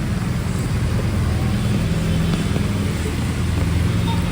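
A motor vehicle's engine running close by with a steady low hum, over a steady hiss.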